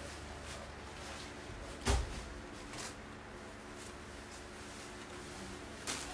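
A few knocks and clicks over a low, steady hum: a loud knock about two seconds in, another near the end, and a few fainter clicks between.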